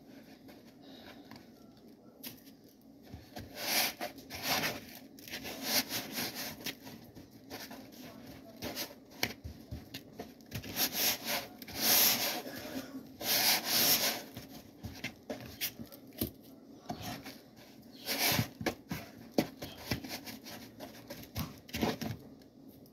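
Hands rubbing and scraping pork ribs through a gritty brown-sugar dry rub in a plastic mixing bowl, in irregular bursts that are loudest about halfway through.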